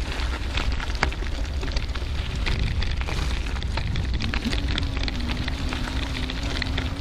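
Bicycle tyres rolling over a gravel path, with wind rushing on the bike camera's microphone: a steady low rumble full of crackling clicks and small knocks. A faint steady hum comes in about four seconds in.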